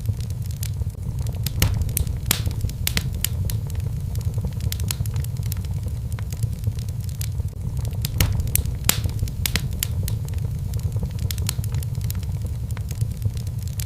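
Fire burning in a fireplace: irregular sharp crackles and pops over a steady low rumble.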